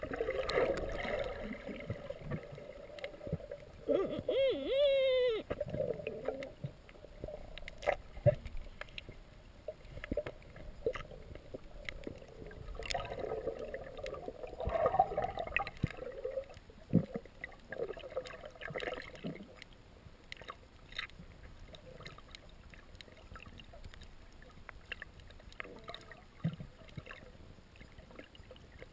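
Muffled underwater noise from a camera held under water: water moving and gurgling around it, with scattered sharp clicks. A brief warbling tone comes about four seconds in. The noise is loudest in the first half and fades toward the end.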